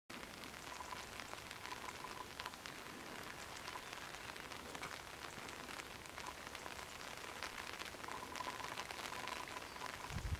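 Light drizzle falling steadily: an even patter of raindrops with many small individual drop ticks.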